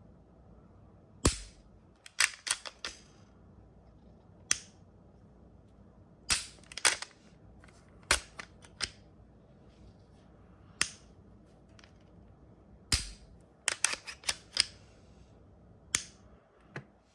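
Glock 47 pistol being handled and worked: a string of sharp, irregular clicks and clacks, some coming singly and some in quick clusters of two or three.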